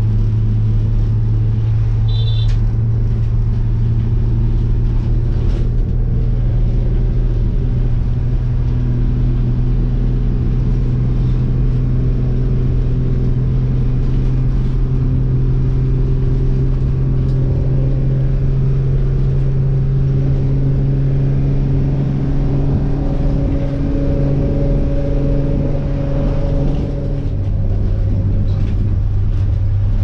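A bus's engine runs under load, its hum climbing slowly in pitch and then dropping suddenly about 27 seconds in. A brief high squeak comes about two seconds in.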